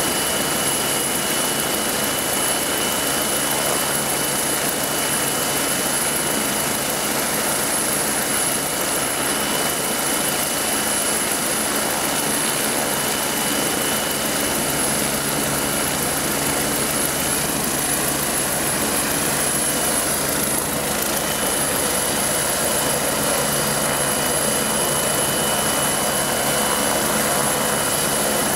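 MBB Bo 105 helicopter running on the ground with its rotors turning, ready for take-off: a steady high turbine whine over dense engine and rotor noise, growing slightly louder near the end.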